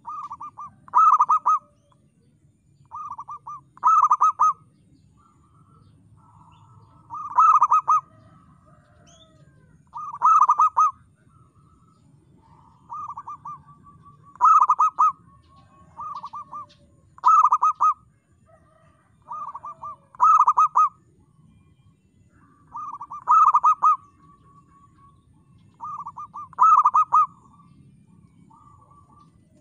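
Zebra dove (perkutut) cooing: about nine song phrases, repeated roughly every three seconds. Each phrase is a few softer notes leading into one loud coo.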